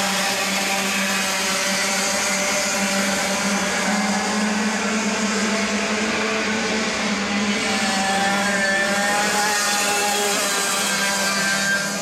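Several racing kart engines running together as a pack, their pitches rising and falling as they accelerate out of corners, with a clear rise in pitch about eight seconds in.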